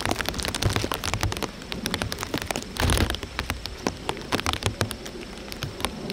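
Steady patter of rain: dense, irregular ticks over a noisy hiss, with a louder swell about three seconds in.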